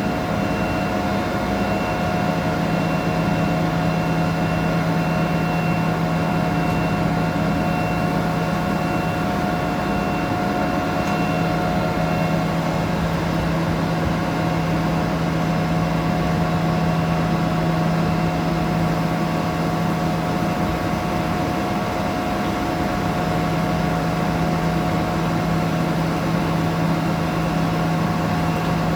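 Steady hum of a hydraulic machine running during a machining cycle, with a high-pitched tone pulsing on and off for roughly the first twelve seconds.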